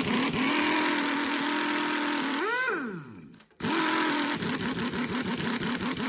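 Impact wrench hammering on a stubborn cylinder head bolt of a Chevy 350 small-block, in two long runs. Each run winds down with a falling whine, the first about halfway through and the second near the end.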